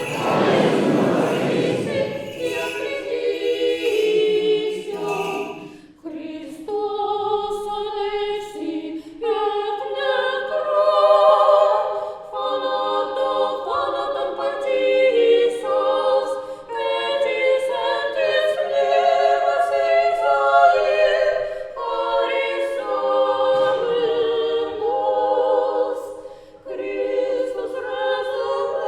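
Orthodox church choir singing a cappella, phrase after phrase with short breaths between them. It starts under a loud rushing noise that fades out about two seconds in.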